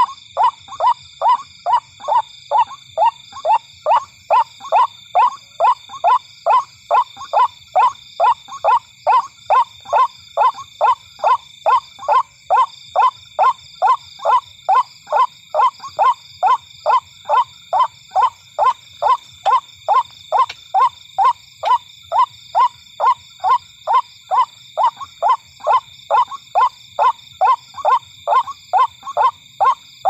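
White-breasted waterhen calling: short, evenly repeated calls at about two a second, the kind of call used to lure waterhens at night. A steady high shrill runs behind.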